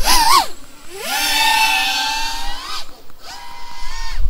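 A 5-inch FPV quadcopter's brushless motors (T-Motor F40 Pro, 1950 kV) whining under throttle at takeoff and in flight. There is a quick wobbling rise in pitch, then a long whine that climbs slightly before cutting off, and a shorter whine near the end.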